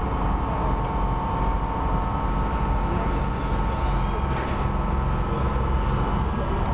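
Tour boat under way, heard from inside the passenger cabin: a steady, even drone of the engine and the water rushing along the hull, with a faint steady whine above it for the first few seconds.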